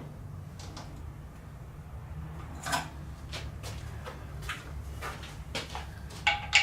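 Scattered clicks and clinks of a socket and hand tools being fitted to the engine's bracket bolts while the 15 mm size is checked, over a steady low hum.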